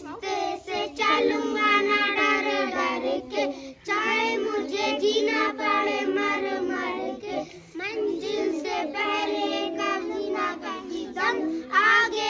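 A small group of children singing a patriotic song together, with brief pauses about four and seven and a half seconds in.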